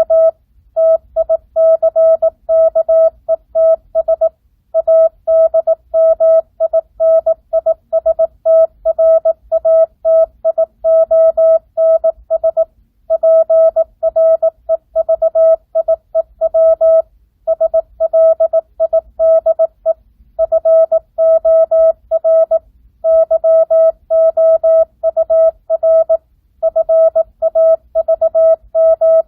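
Morse code (CW) practice tone sent at 18 words per minute with standard, non-Farnsworth spacing. A single steady tone is keyed on and off in quick dots and dashes, with brief pauses between words.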